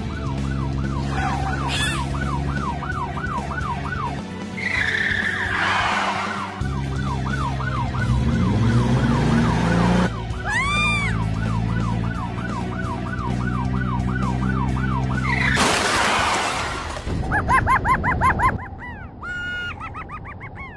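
Chase sound effects: a police siren yelping with quick rising-and-falling sweeps, about three a second, over a steady engine drone. The engine revs up about eight seconds in, and there are noisy bursts of tyre screech around six and sixteen seconds in.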